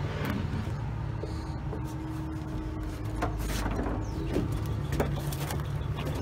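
Car running and moving off: a steady low engine and road hum, with a few scattered light clicks and knocks.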